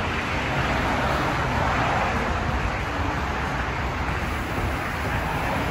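Steady, continuous rush of traffic on a busy multi-lane highway passing below, an even hiss with a low rumble underneath.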